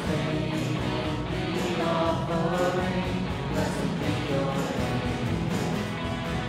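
Live contemporary worship band playing a song: several voices singing together over strummed acoustic guitar, electric guitar and a drum kit with steady cymbal strokes.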